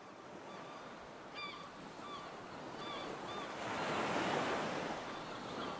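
Sea waves washing in, building to a surge about four seconds in, with short bird calls repeated over them.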